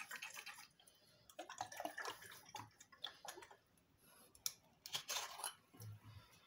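Water sloshing and gurgling in a glass jar in irregular bursts, with a few light knocks of glass jars handled in a stainless steel sink.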